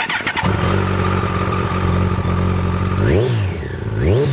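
Kawasaki ZZR1400's inline-four engine idling, then blipped twice on the throttle near the end, each rev rising and falling quickly in pitch. It is loud even at idle.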